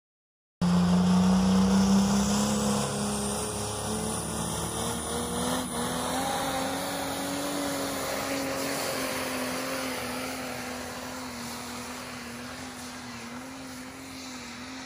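A vehicle engine running, starting abruptly. Its pitch climbs a little a few seconds in, then holds with a slight waver as the sound slowly fades.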